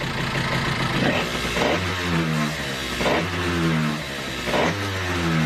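Zip 2000 scooter engine running, its revs rising and falling about once a second as the throttle is blipped.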